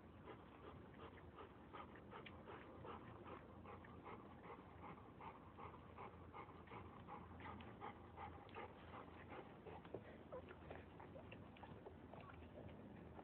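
Whelping dog panting quickly in labour, faint, about three or four short breaths a second.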